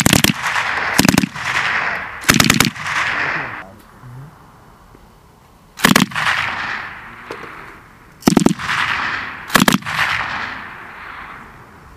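M240 7.62 mm belt-fed machine guns firing short bursts of a few rounds each, six bursts in all with a lull in the middle, each followed by a long echo rolling off across open ground.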